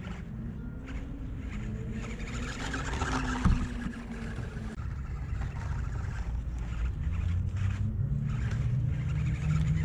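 Small electric motor and gearbox of a 1/24-scale ECX Barrage RC crawler whining as it drives, pitch rising and falling, over a steady low rumble. There is one sharp click about three and a half seconds in.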